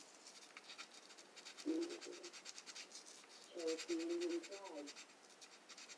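Fine sandpaper rubbed in quick, short, repeated strokes against the plastic body of a Marx four-wheel freight car. Two short, low calls stand out over the rubbing, about two and four seconds in.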